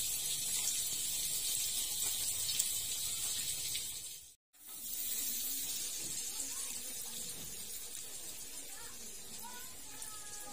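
Margarine sizzling as it melts in a hot wok, a steady high hiss that cuts out for a moment about four seconds in and then slowly fades.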